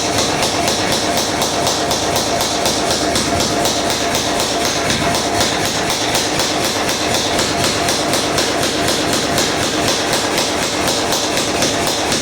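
Power hammer running, striking hot steel in rapid, evenly spaced blows over a steady hum as it fullers out and spreads the cheeks of an axe blank.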